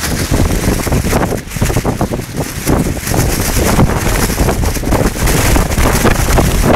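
Storm-force wind buffeting the microphone in loud, gusting rumbles, with a plastic poncho flapping and crackling in it.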